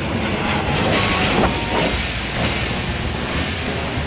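Twin-engine jet airliner passing low overhead, its engines making a loud, steady roar with a hiss.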